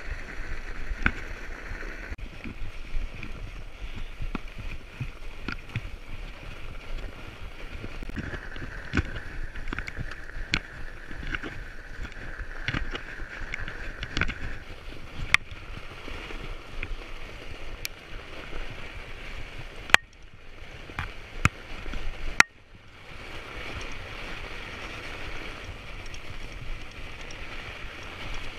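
Fatbike riding over a snow trail: a steady rushing hiss of the fat tyres rolling on snow, with scattered sharp clicks and knocks. The noise drops off for a couple of seconds about twenty seconds in and comes back after a sharp click.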